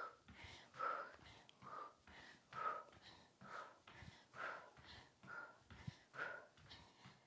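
A woman breathing rhythmically during a cardio workout: a short, faint exhalation about once a second, in time with her movements, close on a clip-on microphone.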